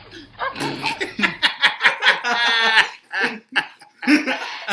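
Men laughing in loud, short bursts, with one long high-pitched laugh about two and a half seconds in.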